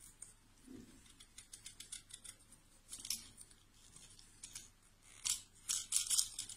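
Small blade shaving and scraping at a fresh avocado pit half, a string of short, scratchy cutting strokes that get busier and louder near the end.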